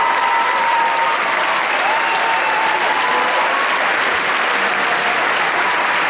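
Audience applauding steadily and fairly loudly, with a few voices whooping over the clapping in the first few seconds.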